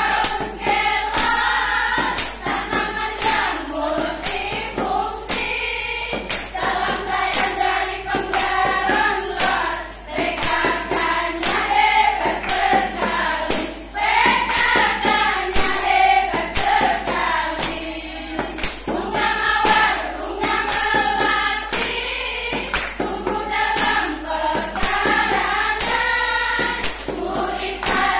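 Women's choir singing together, with a tambourine struck on a steady beat and hands clapping along.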